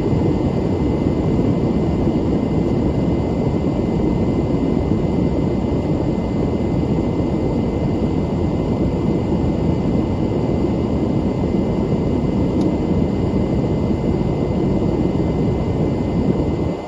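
Beechcraft King Air 250's twin Pratt & Whitney PT6A-52 turboprops and propellers heard from inside the cockpit. It is a steady, loud noise that rises sharply as it begins and falls away abruptly near the end.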